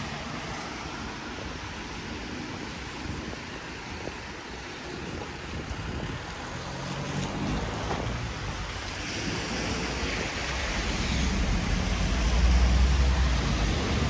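Outdoor street noise on a wet day: a steady hiss of traffic on a wet road with wind on the microphone. A low rumble and hiss build through the second half, loudest near the end, as vehicles pass close by.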